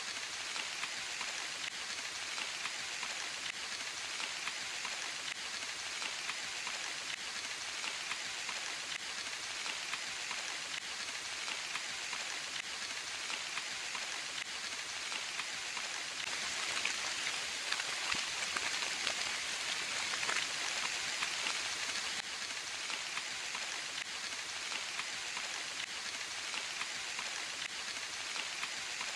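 Steady rain falling in a forest, a dense even patter of drops that grows a little heavier about halfway through and then eases back.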